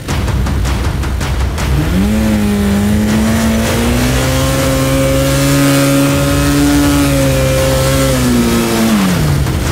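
1978 Kawasaki KZ400's parallel-twin engine revving up about two seconds in, held at high revs for several seconds, then dropping back near the end.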